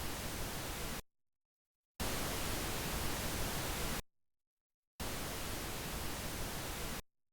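Surround-sound speaker test signal: bursts of even, hiss-like noise of about two seconds each, switched on and off abruptly with a second of silence between. A burst already playing stops about a second in, then two more follow. Each burst is the test channel stepping to the next speaker of a 5.1 system, to check that every speaker is hooked up properly to the receiver.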